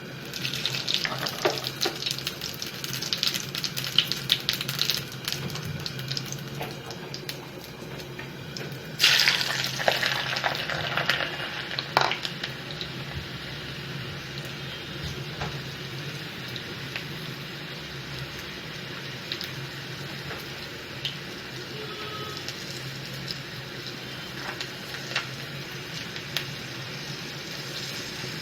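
Mustard oil sizzling and crackling in a pan with ajwain seeds and garlic cloves frying in it. A sudden louder burst of sizzling about nine seconds in dies down to a steady, quieter sizzle.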